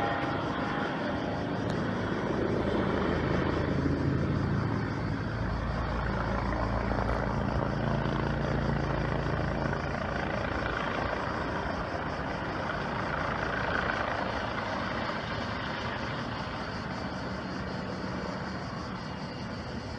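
Steady engine drone, with a deeper rumble for a few seconds in the middle.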